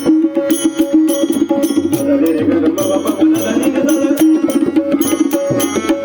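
Instrumental interlude of devotional abhang accompaniment, with no singing. A tabla-type drum keeps a steady beat under a held melodic line, with bright, ringing strokes marking the rhythm.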